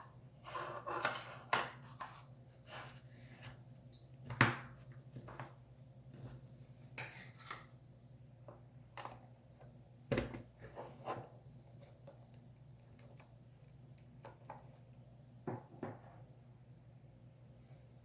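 Cloud slime being squished and stretched by hand: irregular crackles and squishes, the loudest about four and ten seconds in, over a steady low hum.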